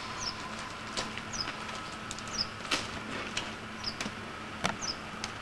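A small bird repeating a short, high chirp that falls in pitch, five times at about one-second intervals. Three sharp knocks fall in between, over a faint steady hum.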